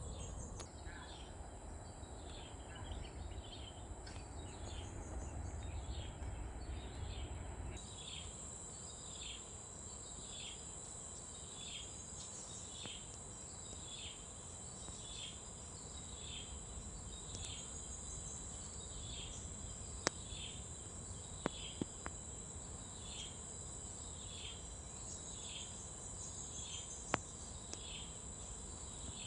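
Field ambience dominated by insects: a steady high-pitched drone with a short falling call repeating about once a second. A low rumble stops about eight seconds in, and a few sharp clicks come in the second half.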